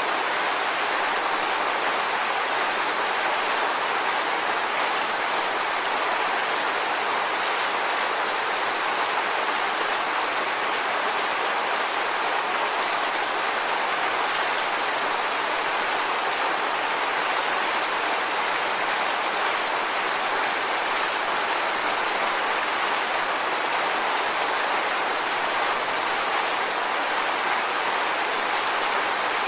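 Waterfall rushing as a steady, even hiss with no breaks or changes.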